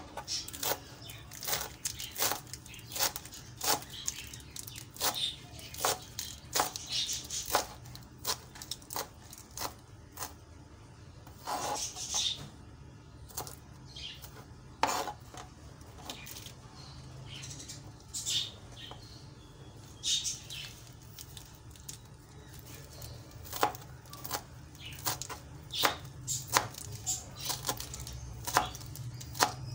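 Kitchen knife chopping fresh spinach leaves on a cutting board: an irregular run of blade knocks, a few a second at times, with a couple of short pauses.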